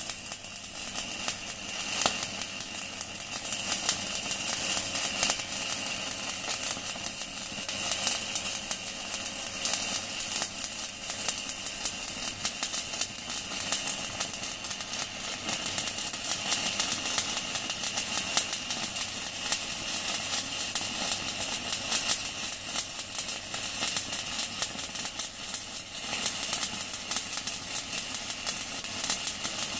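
Stick-welding arc burning continuously with a 4 mm UONI electrode at 160 amps from a small inverter welder: a dense, irregular crackle and sizzle with a faint steady high tone under it.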